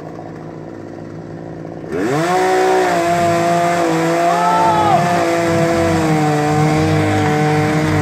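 Two-stroke chainsaw running quietly, then revved to high speed about two seconds in and held there, its pitch dipping and rising under the cut.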